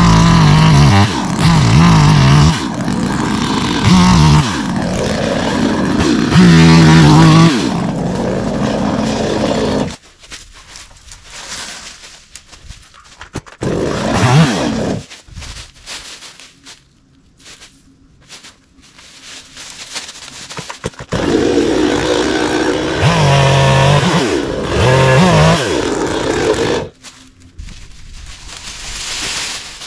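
Modified Stihl MS 250 two-stroke chainsaw running and revving as it cuts wood. It runs loud for about the first ten seconds, gives a short rev near the middle, then cuts again for about six seconds before stopping near the end.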